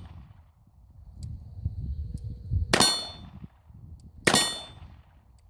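Rossi .357 Magnum revolver fired twice in single action, the shots about a second and a half apart, each with a ringing metallic tail.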